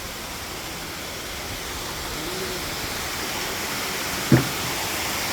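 Waterfall rushing as a steady, even roar of falling water. About four seconds in there is a single brief knock.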